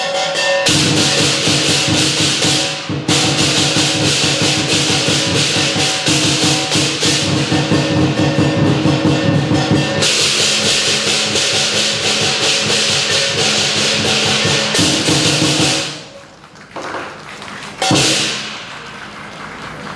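Lion dance percussion: a large drum with crashing cymbals and gong playing a fast, dense beat, which stops about sixteen seconds in. Near the end a single strike rings out and fades.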